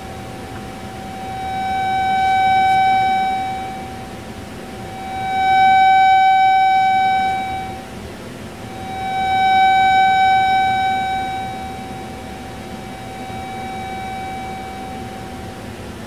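A steady buzzy tone from a microwave demo receiver, made audible through a speaker. It swells and fades three times as the received signal passes through interference maxima and minima, then stays weaker near the end.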